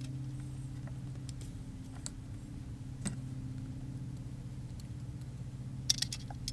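A few faint metallic clicks and ticks as a small screw and screwdriver are handled against a metal light-fixture housing, with a short cluster of clicks near the end. A steady low hum runs underneath.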